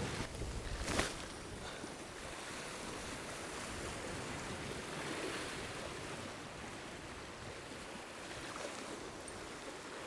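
Small sea waves washing and foaming over shoreline rocks, a steady surf wash, with one brief knock about a second in.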